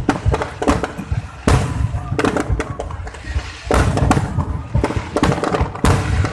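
Aerial firework shells bursting overhead in quick succession: a rapid string of bangs with echoing tails, the loudest booms about a second and a half, three and a half, and six seconds in.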